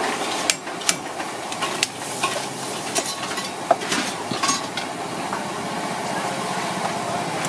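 Cleaver chopping through mud crab shells on a chopping block: a string of sharp chops, about seven in the first four seconds and fewer after, over steady background noise.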